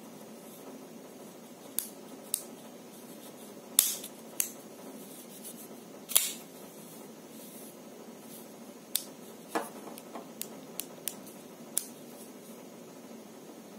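Sanrenmu 9011 folding knife with G10 handle scales being worked open and shut by hand: about a dozen sharp clicks as the blade snaps open and closed and locks. The loudest clicks come about four and six seconds in, with a quicker run of lighter clicks later.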